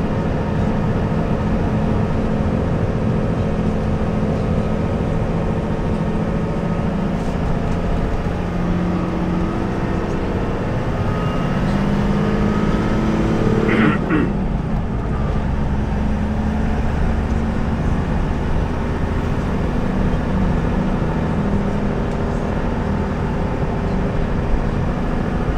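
Vehicle engine and road noise heard from inside the cabin while driving. The engine note climbs steadily, then drops abruptly about halfway through with a short sharp sound at the drop, and settles back to a steady rumble.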